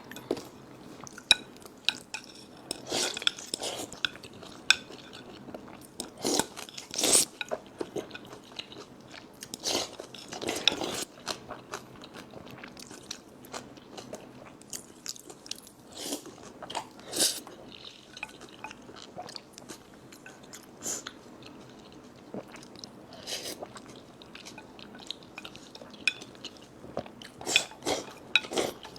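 Close-up eating sounds: chewing mouthfuls of rice mixed with green-pepper sauce, with utensils now and then clinking against a bowl in short, irregular sounds.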